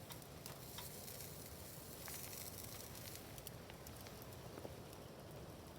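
Wood campfire crackling softly, with scattered faint pops and ticks over a low hiss.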